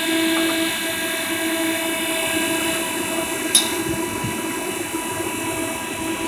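Refrigeration unit of a Crane National Vendors snack vending machine running: a steady hum and whine over a fan-like hiss. One sharp click about three and a half seconds in.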